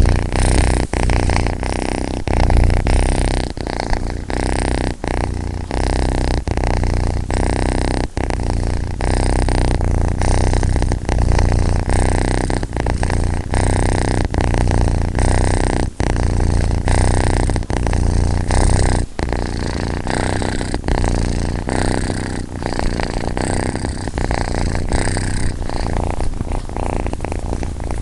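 Domestic cat purring steadily and at length, with brief breaks in the purr every second or so.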